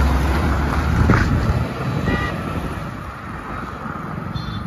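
Tuned Volkswagen Jetta driving past. Its engine and exhaust rumble is loudest about a second in, then fades as the car moves away.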